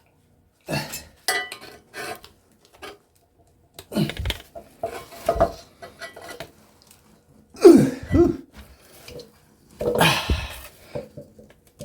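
Steel shell of a sawn-open fridge compressor clanking and scraping as it is handled. It comes as a string of separate knocks and rattles, the loudest about two thirds of the way in.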